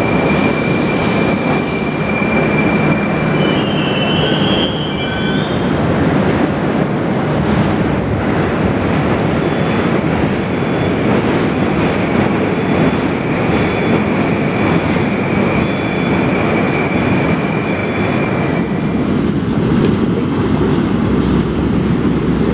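Moscow Metro subway train at a station platform: loud running and rumbling noise with high, steady wheel squeal, and a short rising squeal a few seconds in. The train pulls in, stands with its doors open, then runs out of the station again.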